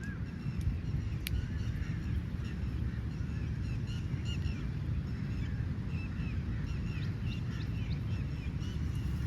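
Several crows cawing in short, repeated calls that overlap one another, over a steady low rumble.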